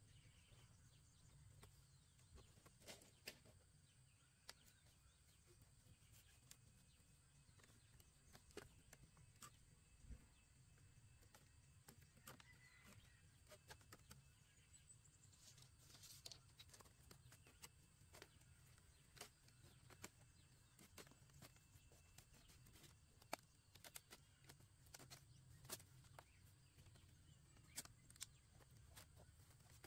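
Near silence: faint steady background noise with scattered soft clicks and taps at irregular intervals.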